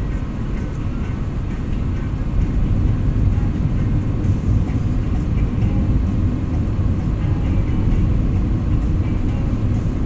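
Steady low rumble of a car's engine and tyres on asphalt, heard from inside the cabin while driving at a constant speed.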